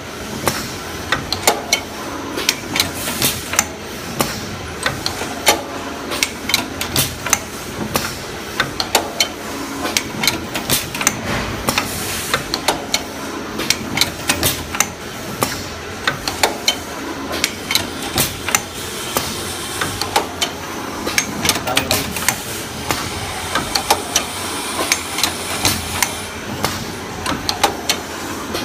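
Paper baking cup forming machine running, with rapid sharp clicks and knocks, several a second in uneven clusters, over a steady mechanical running noise.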